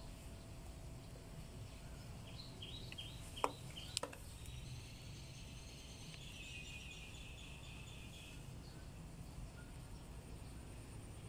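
Quiet outdoor background with a low steady hum, faint high chirping, and two sharp clicks about half a second apart near the middle.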